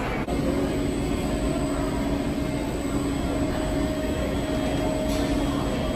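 Steady machinery hum from an automatic candy-bar boxing machine, an even drone with a faint steady whine.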